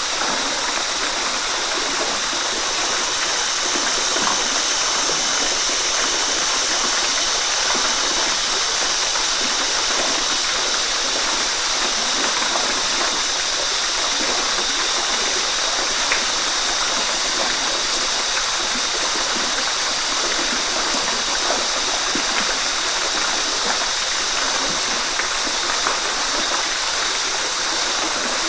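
Waterfall: a steady rush of falling water splashing into a pool, a constant hissing wash that never lets up.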